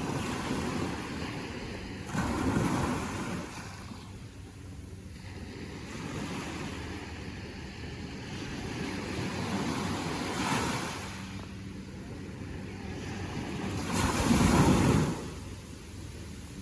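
Ocean waves breaking and washing up on the shore, swelling in three surges, the loudest near the end, over a steady rush of surf.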